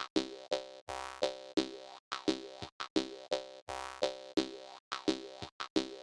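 Jaw harp music: a quick dance rhythm of twanging plucks, each starting sharply and ringing down, with short breaks between phrases.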